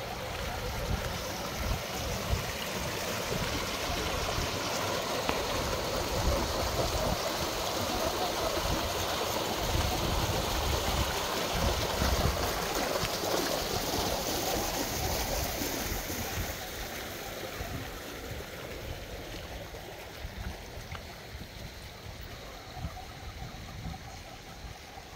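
Steady running water from a garden pond's stream or waterfall, trickling and gurgling, louder for the first two-thirds and then dropping off.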